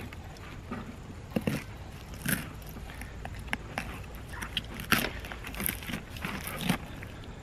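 Kitchen knife sawing through a kahawai's head behind the gills, giving a string of short crunches and clicks as the blade cuts flesh and bone.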